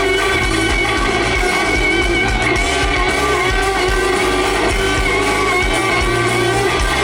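Rock band playing live through a PA: electric guitars, bass and drums, loud and continuous.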